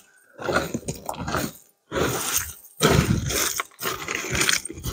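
Broken concrete rubble and gravel being scraped and pulled by hand along a slab edge, crunching in about four bursts.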